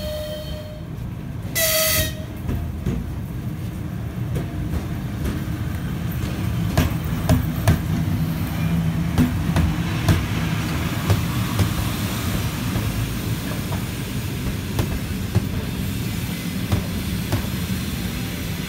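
An RZD electric locomotive gives a short horn blast about a second and a half in, then it and its passenger coaches roll past with a steady rumble. The wheels clack over rail joints at irregular intervals, busiest a few seconds into the pass.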